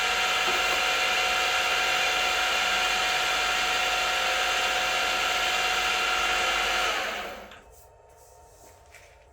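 Grizzly G0519 milling machine running steadily with a whine of several steady tones, then switched off about seven seconds in and spinning down quickly to quiet.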